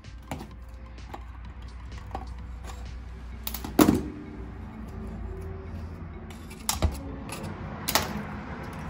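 Metal parts of a Vespa handlebar's gear-change pulley assembly being handled and worked loose, giving a few sharp metallic clicks and knocks. The loudest comes just under four seconds in, over faint background music.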